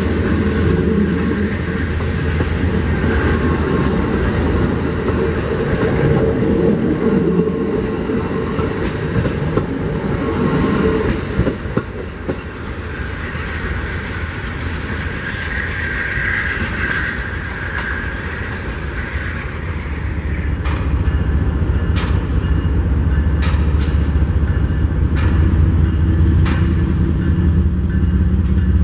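Amtrak Superliner bilevel passenger cars rolling past close by, their wheels rumbling over the rails, for about the first eleven seconds. After a quieter stretch, the low steady hum of an approaching diesel locomotive builds over the last several seconds, with scattered sharp clicks.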